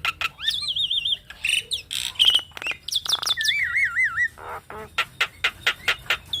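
Javan myna singing a busy, varied song: rapid sharp clicks, harsh squawky notes and wavering, warbled whistles.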